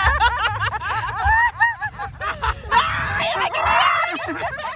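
Several young women laughing hard and shrieking, with high-pitched squealing laughter that breaks into a noisier scream about halfway through.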